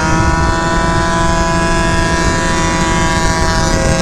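Two-stroke scooter engine held at steady high revs, a steady whine, over wind and road rumble.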